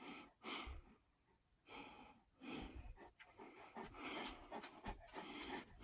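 Dog panting faintly: a run of short breaths at an uneven pace.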